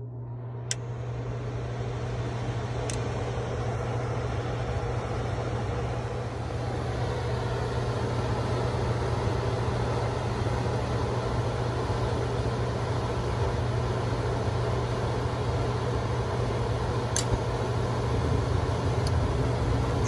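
Trane gas furnace running with its cabinet open: a steady motor hum under the broad rushing of the lit burners, building over the first seconds, with a few faint clicks. This is the furnace that shows bad flame rollout.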